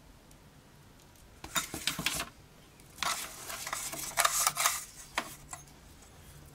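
Scrap metal parts clattering and scraping as they are moved about and set down in a metal tub, in two bursts of rattling knocks, with a single click near the end.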